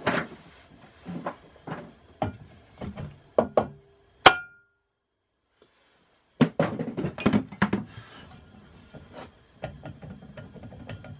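Knocks and thuds of metal as an LG direct-drive washing machine motor's rotor is worked further onto its shaft and bearing, which was not yet on far enough. A sharp click about four seconds in, then the sound drops out completely for about two seconds before the knocking resumes.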